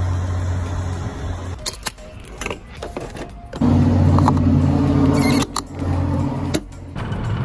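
Plastic fuel cap clicking as it is turned in a car's filler neck, a few sharp clicks in the quieter stretches. A steady low hum comes and goes with the edits, loudest just past the middle.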